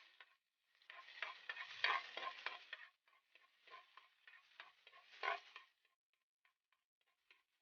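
Utensil stirring and scraping food in a cooking pan, with clinks and rustles for about five seconds, then a few light ticks near the end.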